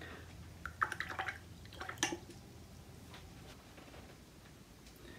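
A few faint drips and small watery clicks about a second and two seconds in, then quiet room tone.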